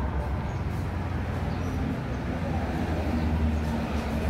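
Road traffic passing: a steady low rumble of cars and motorbikes, with a vehicle's engine hum coming in about halfway through.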